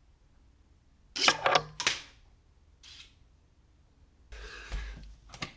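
A quick run of sharp plastic clicks and a clatter about a second in, as the spring-loaded prongs of a USB-C auto-disconnect adapter pop out at full charge and kick the phone off the plug. A softer rustle of handling follows near the end.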